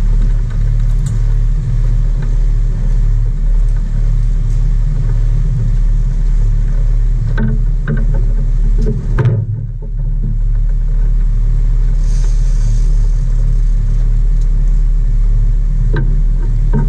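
Sport-fishing boat's engine running steadily while trolling: a loud low drone with the wash of the wake over it. The drone dips briefly about nine seconds in.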